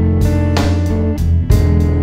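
Blues band playing without vocals: a guitar line over bass and drums, with a few drum or cymbal hits.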